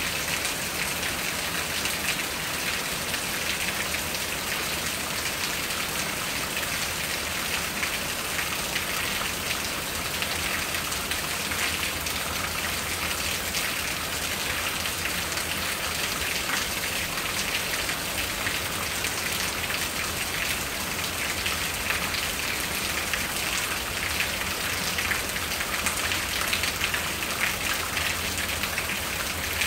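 Steady rain falling on the leaves of a magnolia tree and a house roof: an even, continuous hiss of many small drops.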